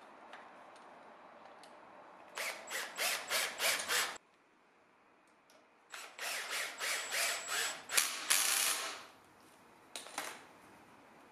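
Ratcheting hand screwdriver driving brass screws through brass tabletop fasteners into a walnut frame, clicking in rhythmic strokes about three a second. There are two runs, the second longer and ending in a longer rasp, then a short burst near the end.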